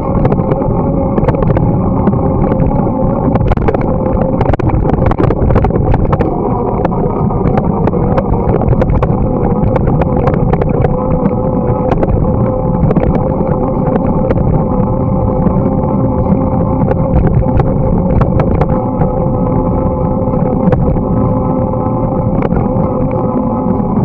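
Bicycle rolling along a snowy winter path: a loud, steady hum of tyres and drivetrain, with frequent short clicks and rattles as it goes over bumps.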